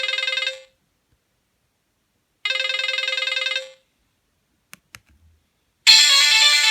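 Nokia 1280 ringtone: a burst of rapidly repeating electronic beeps ends about half a second in and rings once more for about a second, about two and a half seconds in. After two faint clicks, a different, busier ringtone melody starts near the end.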